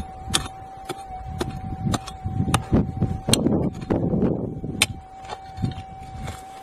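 Prospecting pick striking and scraping into hard, stony red dirt, about two sharp blows a second, while digging out a metal-detector target. A steady high tone runs underneath.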